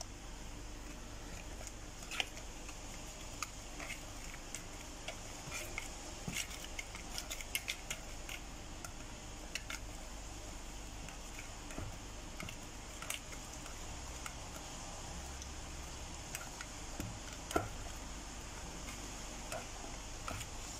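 Wire whisk beating runny cake batter in a plastic bowl: irregular light clicks and taps of the wires against the bowl, over a steady background hiss.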